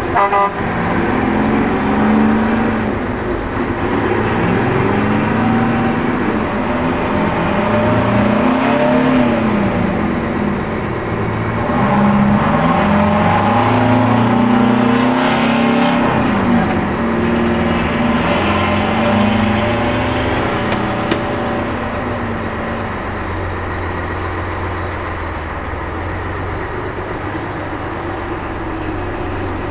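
Heavy diesel truck engines running and revving, their pitch rising and falling again and again, then settling to a steadier run for the last third.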